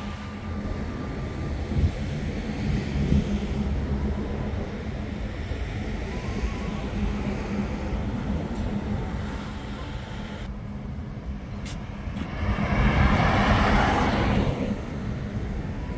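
Road traffic with a steady low rumble; a vehicle passes close, swelling and fading about twelve to fifteen seconds in.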